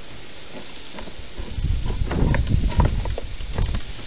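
European hedgehog snuffling close to the microphone. It is a run of short, noisy huffs and clicks that grows louder about a second and a half in.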